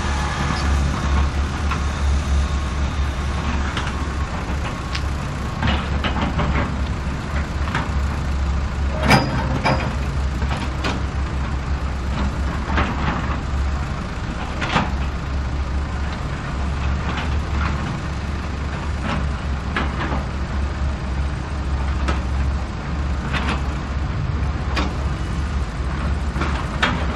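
Heavy road-vehicle ambience: a steady low engine rumble with scattered rattles and knocks, and one brief louder squeal about nine seconds in.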